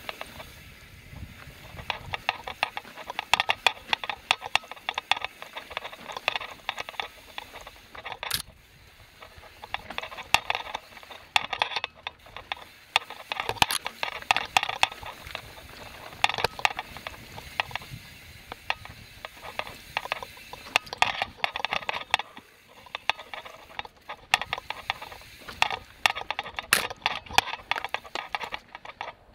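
Mountain bike's rear freehub ratcheting in spells of rapid clicking a few seconds long while coasting, broken by quieter stretches. A few sharp knocks stand out, about 8, 13.5 and 27 seconds in.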